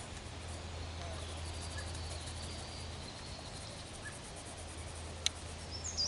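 Outdoor ambience with no speech: a steady low hum and faint insect buzzing. A single sharp click comes near the end, and a bird starts chirping just as it ends.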